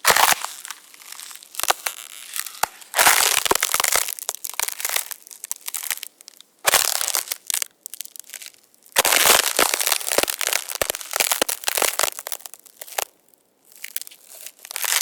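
Walking on ice: irregular bursts of crunching and cracking, some a second or more long, with many sharp clicks and short quiet gaps between them.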